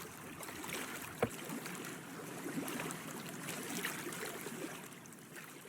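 Small waves lapping and trickling against a boat's hull, with one sharp knock a little over a second in.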